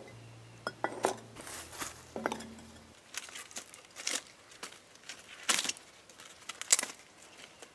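Thin, dry papery bark torn and crumpled by hand as fire kindling: a run of irregular crackly rustles from about three seconds in. Before that, a few light knocks as a firebrick is set in place.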